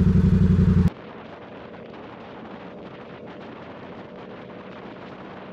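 A motorcycle engine running loud and steady at a standstill. About a second in it cuts off suddenly, giving way to a steady, muffled rush of wind and road noise on the rider's camera at highway speed.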